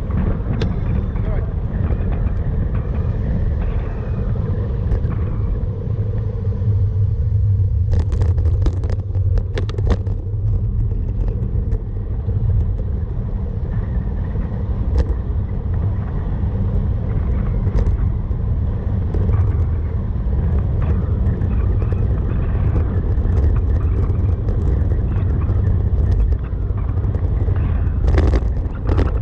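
Steady low rumble of wind buffeting a bike-mounted camera's microphone while riding along a road, with road noise underneath. A few short sharp clicks or knocks come in bursts around a third of the way through and again near the end.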